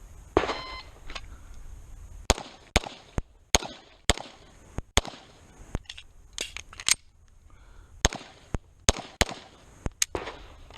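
A shot timer beeps once, then a Beretta 92 Elite LTT 9mm pistol fires a rapid string of shots. The string breaks for about a second in the middle for a magazine change, then the shots pick up again.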